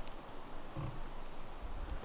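Wind buffeting the microphone: a low, uneven rumble with gusty thumps about a second in and near the end.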